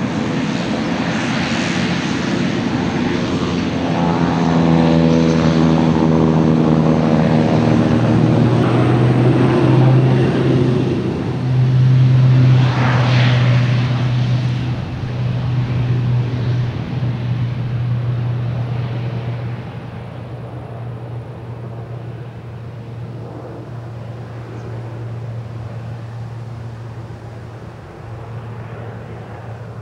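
Beechcraft King Air's twin turboprops powering up for takeoff: a deep propeller drone whose pitch climbs over the first several seconds, then holds steady and loud as the aircraft accelerates down the runway. It fades in the last third as the aircraft lifts off and moves away.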